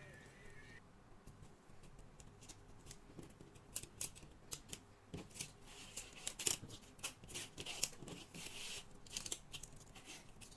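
Hands working paper craft pieces: faint, irregular clicks and snips, sparse at first and coming thicker from about three and a half seconds in.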